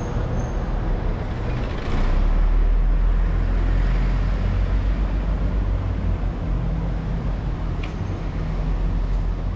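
City street traffic: a steady low rumble of vehicle engines and tyres, swelling as a vehicle passes about two seconds in.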